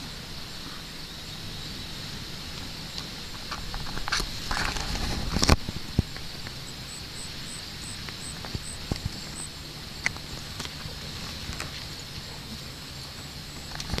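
Outdoor ambience in tall weeds: a steady high hiss with a faint low hum, broken by rustling and a sharp knock about five seconds in. A short run of about half a dozen faint, evenly spaced high pips follows a few seconds later.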